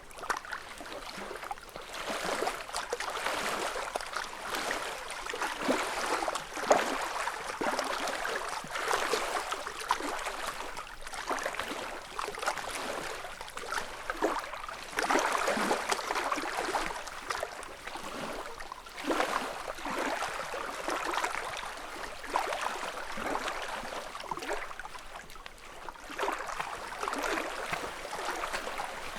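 Small ripples lapping on a lakeshore: soft splashes and trickles that swell and ease every few seconds.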